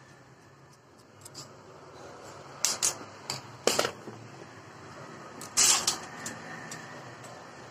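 Sharp metallic clicks and knocks of small parts being handled as a motorcycle starter motor is taken apart by hand: a cluster of knocks about three seconds in and a louder clatter near six seconds.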